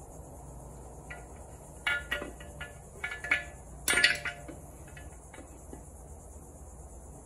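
Cast-aluminium case of a Tremec TR6060 six-speed transmission being slid down over its gear stack and shift rails: a handful of light metal clinks and knocks, the loudest about four seconds in, over a steady high hiss.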